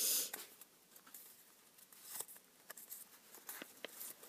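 Origami paper rustling as it is folded and creased by hand: faint, scattered rustles, with a louder one right at the start and another about two seconds in.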